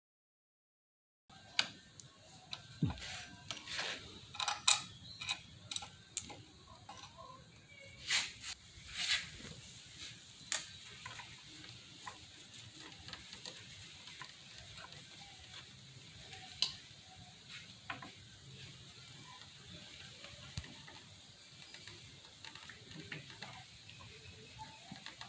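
Small clicks, taps and light knocks of hands and hand tools on metal and rubber parts as the reservoir hose is refitted to a Nissin rear brake master cylinder and clamped with pliers. The sounds start about a second in, come thick for the first several seconds, then grow sparser.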